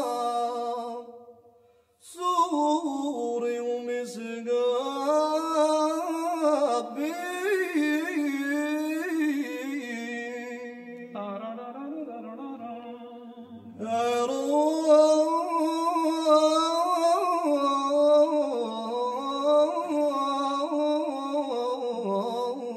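A single voice singing a slow melody that slides and wavers in pitch, breaking off briefly about a second in and going quieter for a few seconds in the middle.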